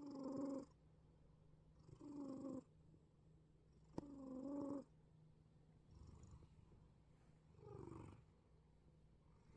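A sleeping cat wheezing as it breathes: five whistly, pitched wheezes about two seconds apart, the last two softer. There is one sharp click about four seconds in.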